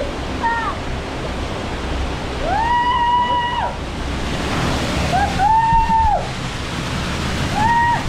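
Waterfall pouring steadily into a rock pool, with three long high-pitched cries from a person over the rush of the water, the first about two and a half seconds in and the last right at the end.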